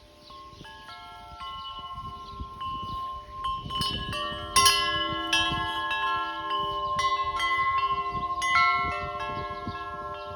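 Homemade wind chime made from old trampoline parts ringing, with several long-sustained metallic tones overlapping. The strikes are sparse at first, then come faster and louder from about a third of the way in.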